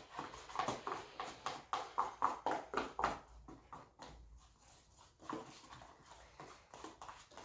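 Homemade slime being mixed and worked: a fairly faint, irregular run of short sticky clicks and squelches, thinning out for a couple of seconds midway.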